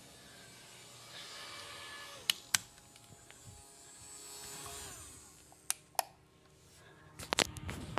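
Small handheld electric fan buzzing faintly, with a few sharp clicks: two about two seconds in, two more near the middle and a quick cluster near the end.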